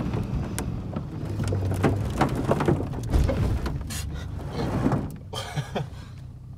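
Heavy diesel engine drone with repeated clanks, knocks and creaks, heard from inside a pickup's cab as a Cat D5 bulldozer's blade lifts and pushes the truck's back end out of the mud.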